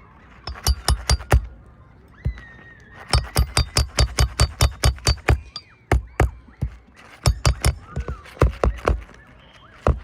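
Hammer blows in quick runs, about four to five strikes a second, as roofing nails are driven during shingle repair: four strikes, then a long run of about a dozen, then another short run near the end.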